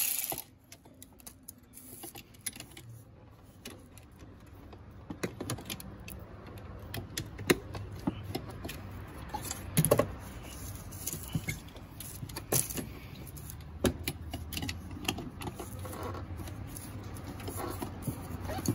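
Irregular light clicks, knocks and rattles of hands working the condenser fan motor, its fasteners and the plastic fan shroud, with a few sharper knocks near the middle, over a low steady rumble.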